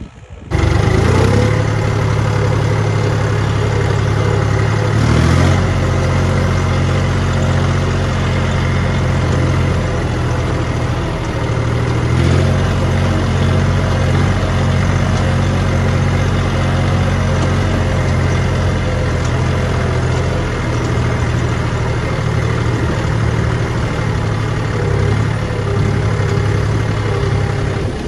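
John Deere tractor's diesel engine running steadily under load while pulling two disc harrows through tilled soil. It comes in suddenly just after the start, and its note shifts slightly twice as the load changes.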